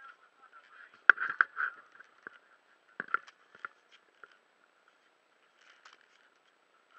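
A few muffled knocks and clicks: a cluster of loud ones about a second in, a few more about three seconds in, then only faint ticks.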